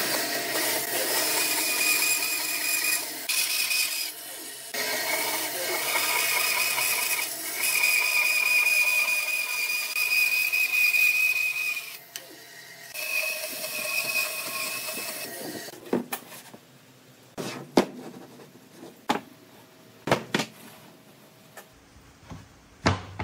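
Bandsaw cutting a thick pine block, a steady noisy hiss with a high whine over it, broken by a few short pauses as the wood is fed and turned. In the last third the sawing stops and several sharp wooden knocks follow, as the cut wooden pieces are set down on a workbench.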